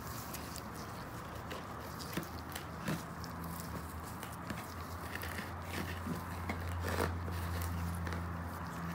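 Gloved hands pressing and working potting soil around flower cuttings, with scattered small crackles and soft rustles. A steady low hum grows stronger about halfway through.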